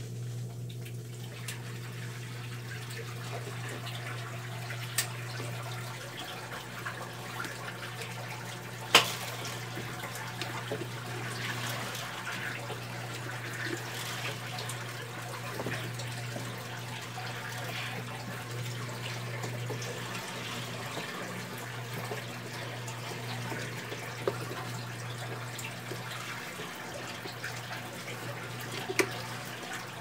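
Brastemp Ative BWL11 top-loading washing machine running its wash with a steady low motor hum and water and clothes sloshing in the tub. A few sharp clicks are heard, the loudest about nine seconds in.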